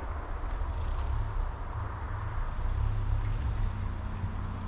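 Pickup truck driving in snow: a steady low rumble of engine and road noise, with a faint steady hum above it.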